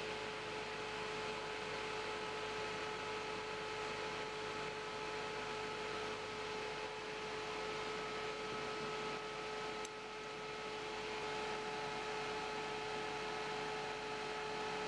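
Bench fume extractor fan running steadily: a constant rush of air with a steady whine in a few fixed pitches. A faint click about ten seconds in.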